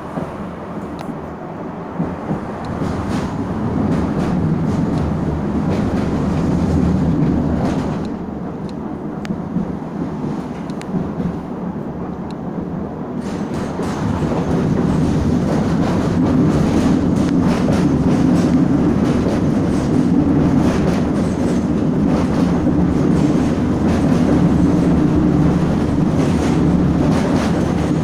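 Steady low rumble with many scattered clicks and knocks, easing off a little about a third of the way through and growing louder again past the middle.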